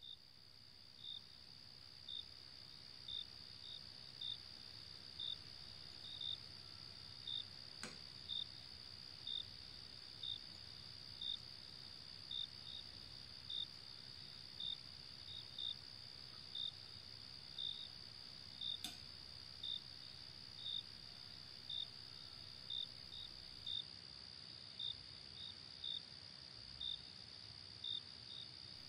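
Insects chirping: a steady high-pitched trill with a short chirp about once a second.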